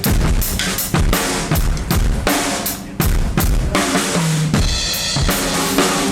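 Drum kit played during a sound check: kick drum, snare and cymbals struck in a busy, continuous pattern, with a low drum ringing briefly about four seconds in.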